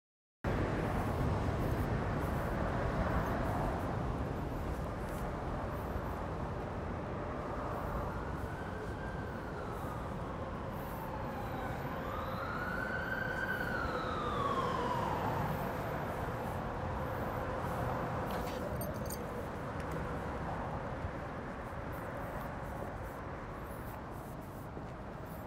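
Steady street traffic rumble that cuts in suddenly. In the middle a siren rises and falls twice.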